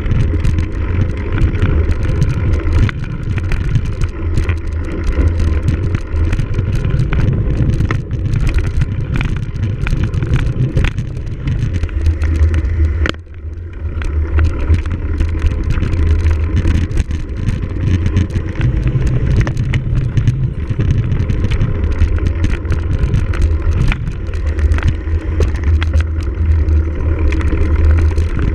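A cyclocross bike ridden hard over rough ground, heard from the bike or rider: a constant low wind rumble on the microphone with frequent small rattles and knocks from the bike. It eases briefly about halfway through.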